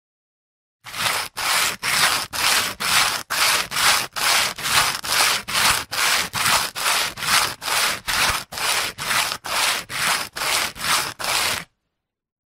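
Sandpaper rubbed back and forth in a steady rhythm of about two strokes a second, starting about a second in and stopping suddenly near the end.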